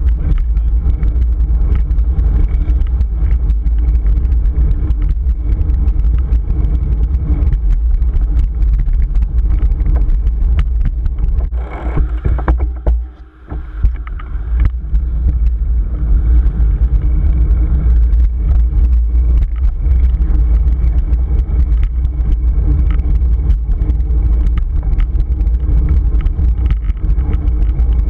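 Wind rushing over a bicycle-mounted action camera during a road ride: a loud, continuous low rumble with tyre and road noise and small rattling clicks. It drops away briefly for about a second near the middle, then returns.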